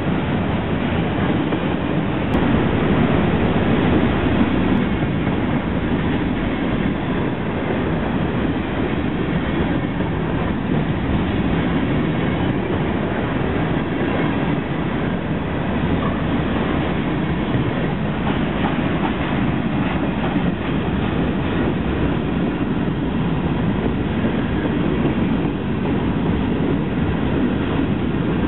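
Freight train of covered hopper cars rolling past close by: a loud, steady rumble of steel wheels running over the rails.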